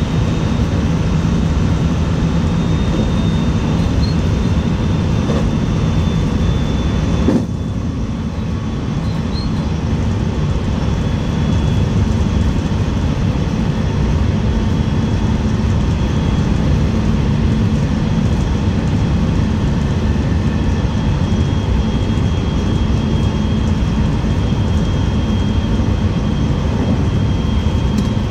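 Electric passenger train running at speed, heard from the front cab: a steady rumble of wheels on rail with a faint, steady high whine over it. A single sharp knock about seven seconds in, after which the running noise is briefly a little quieter.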